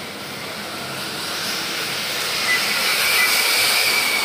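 Electric 1/8-scale RC buggies running on the track: a steady hiss with a thin high whine from the electric motors and drivetrain that comes in about halfway through and grows louder as a buggy passes close.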